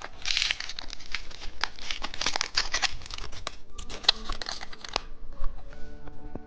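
Candy wrapper crinkling and tearing as it is opened, with many small sharp crackles; it dies down about five seconds in.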